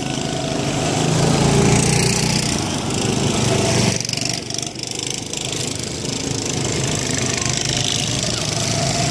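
Small go-kart engines running as karts drive around the track. The engine sound dips briefly about four and a half seconds in, then builds again.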